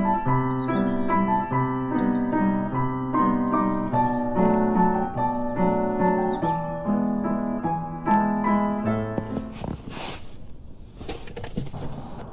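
Background piano music, a steady run of repeated notes, which stops about nine seconds in. After it comes a plain hiss with a few scattered clicks.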